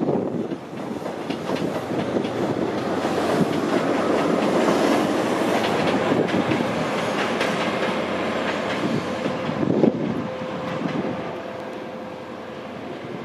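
InterCity 125 (HST) running past at speed: the wheels clatter over the rail joints under a loud rush of air. The rear Class 43 diesel power car goes by partway through, there is a sharp knock about ten seconds in, and the sound drops away toward the end.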